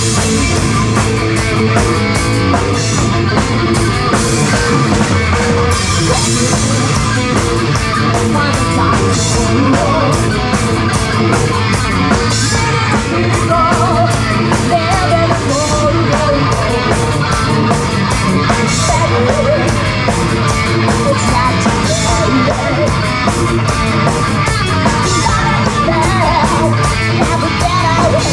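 A live rock band playing loud hard rock: distorted electric guitar, bass and drum kit, with some singing.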